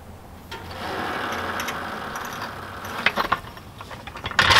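Arcan hydraulic floor jack being let down under a car: a steady hiss from the opened release valve as the load comes off, a few clicks around three seconds in, and a louder hiss starting near the end.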